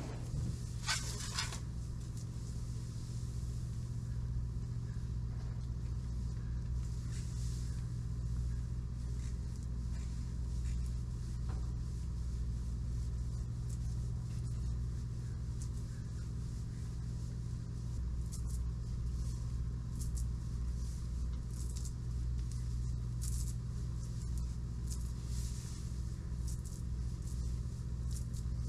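A steady low mechanical hum that does not change, with faint scratchy strokes now and then, more of them in the second half.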